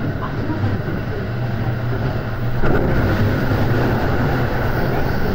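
Tōkaidō Main Line commuter train running between stations, heard from inside the passenger car: a steady rumble of wheels and running gear with a low hum, growing a little louder about two and a half seconds in.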